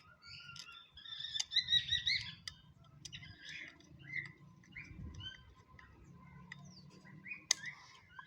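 Small birds chirping in quick, repeated short notes, busiest in the first couple of seconds, with a couple of sharp clicks in between.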